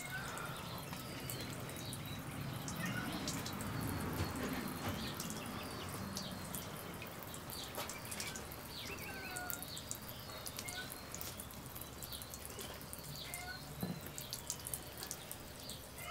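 A small jet of water spraying and splashing, with many quick drips and droplet ticks. A few faint high chirps come and go.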